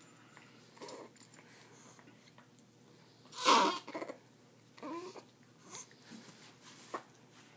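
A baby and a small pet dog playing together: a few short vocal sounds over a quiet room background, the loudest a brief sharp squeal about three and a half seconds in, then a short falling call about five seconds in.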